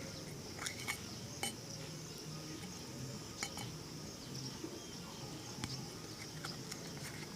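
Shoe-shine tools being handled: sparse light clicks and clinks, about half a dozen, spread through the stretch, over a steady faint high-pitched hiss.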